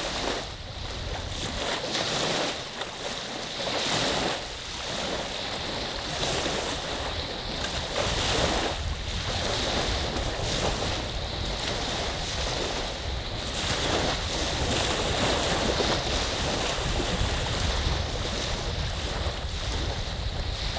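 Lake waves rolling onto a sand beach, the wash swelling and easing every couple of seconds, with a low wind rumble on the microphone.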